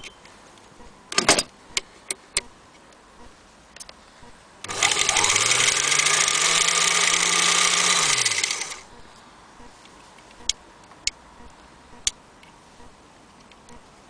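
Singer 221K Featherweight electric sewing machine running for about four seconds on its motor: it speeds up, runs steadily, then winds down. A few sharp clicks come before and after the run.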